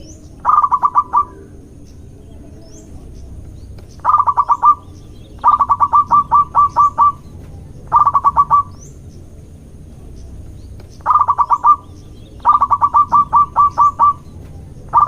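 Zebra dove (perkutut) cooing: about six bursts of quick, evenly spaced staccato coos, some short and some longer runs of eight or so notes, with pauses of one to two seconds between them. Faint high chirps of small birds in the background.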